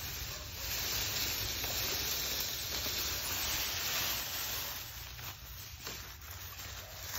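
Dry, leafy cut bamboo branches rustling steadily as they are dragged over dry leaf litter. The rustling eases off after about four and a half seconds, leaving a few light crackles and rustles.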